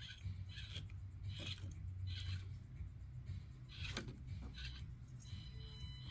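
Axial AX24 micro RC crawler working over the course: short scraping and rubbing sounds from its small drivetrain and tyres on the obstacles, over a low hum, with one sharp click about four seconds in.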